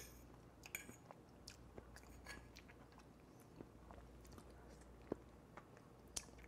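Faint chewing of a caramelized fig, with a few soft scattered clicks.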